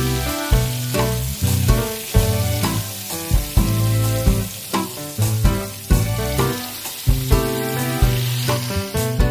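Pieces of tempe bacem frying in hot cooking oil with a steady sizzle, under background music with a regular beat.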